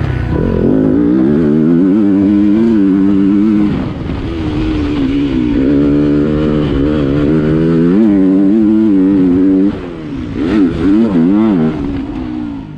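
Yamaha motocross bike's engine, heard from a helmet-mounted camera, revving up and down as the rider works the throttle through the track's bends. Just under ten seconds in the throttle is shut off briefly, then blipped up and down a few times in quick succession.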